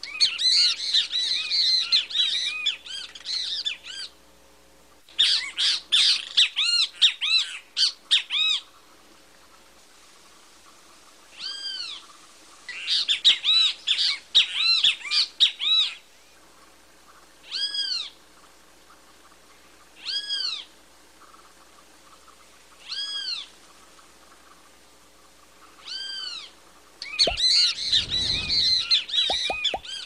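Great kiskadee (bem-te-vi) calling: bouts of rapid, harsh chattering calls alternating with single arched calls repeated every two to three seconds.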